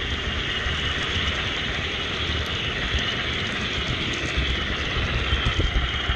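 HO scale model train running on the track close to the microphone: a steady rolling noise of small wheels on the rails, with no change in level.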